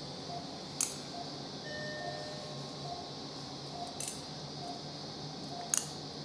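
Steel surgical instruments clicking sharply three times, the loudest sounds here. Under them an anaesthetic monitor beeps steadily a little under once a second, keeping time with the patient's pulse, over a constant operating-room hiss.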